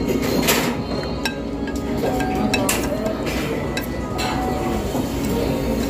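Ramen eating: ramen spoon and chopsticks clinking several times against the bowls, with a couple of short slurps of broth and noodles.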